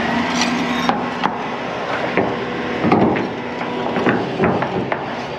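Several irregular knocks and clunks of hard objects being handled, over the steady running of a heavy wrecker's diesel engine.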